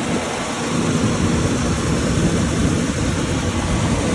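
1967 Ford Thunderbird's V8 engine idling steadily, getting a little louder a little under a second in. It runs smoothly now that a squeezed fuel line starving it of fuel has been replaced, the fuel pump feeding it without restriction.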